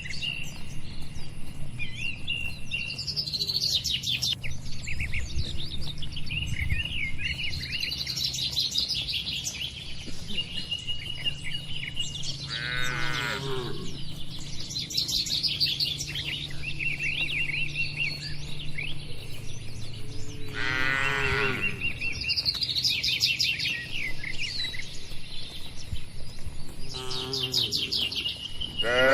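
Cattle mooing three times, each a long call falling in pitch, over continuous chirping of small birds in the barn and a steady low hum.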